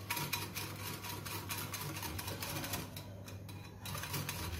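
Wire whisk beating a thick cream, yogurt and sugar mixture in a glass bowl: fast, even clicking of the wires against the glass, with a short pause about three seconds in.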